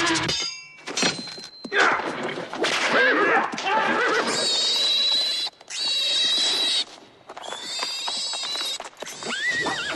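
Horses whinnying several times, in a busy film sound mix.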